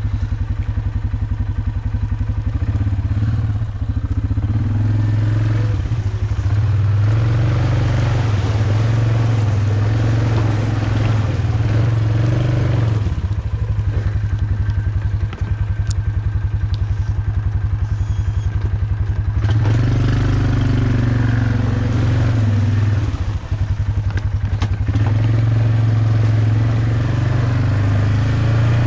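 Off-road vehicle's engine running as it drives a trail, its pitch rising and falling repeatedly with the throttle.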